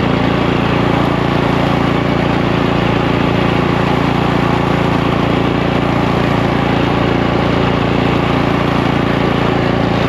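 Gas snow blower engine running steadily at a constant speed.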